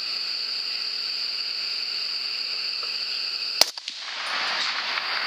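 A single rifle shot about three and a half seconds in, one sharp crack over a steady high-pitched chorus of calling frogs; the chorus briefly dips after the shot, then comes back.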